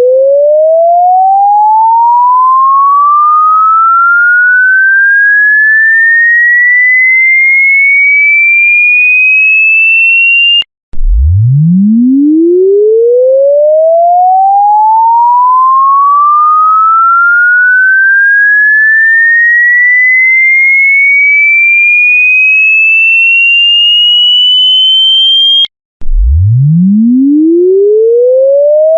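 An electronic pure-tone frequency sweep: a single tone rising smoothly from a deep hum to a high whistle over about fifteen seconds. It cuts off abruptly and starts again from the bottom, about 11 seconds in and again about 26 seconds in.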